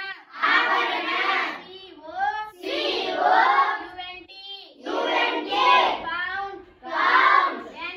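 A class of children chanting words aloud in unison, each chorus answering a single child's voice: call-and-response recitation of vocabulary, four times.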